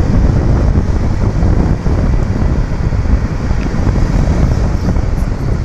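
Wind blowing across the microphone: a loud, low rumble that goes on unbroken.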